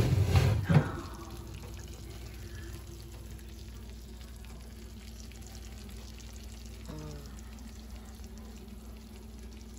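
Chicken parmesan in a cast iron skillet, bubbling and sizzling steadily with fine crackles, its sauce boiling around the edges as it comes out done. A brief loud rumble and knock in the first second.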